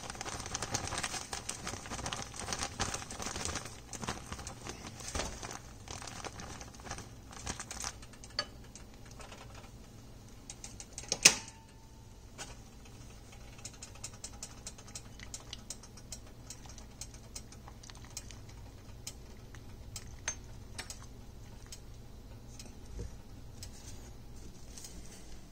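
Light brown sugar pouring from its bag into a saucepan of liquid: a dense patter of clicks and hiss for the first several seconds that thins out. About eleven seconds in comes a single sharp knock with a short ring, then only scattered faint ticks.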